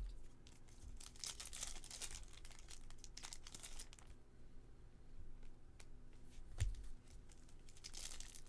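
Baseball card packs being torn open and their wrappers crinkled, in irregular rustling spells, with one sharp knock about two-thirds of the way through.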